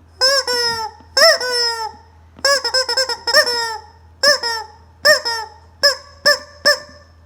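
Squeezable rubber chicken toy squawking repeatedly as it is pressed: about ten honking squeals, each rising then falling in pitch, growing shorter and quicker near the end.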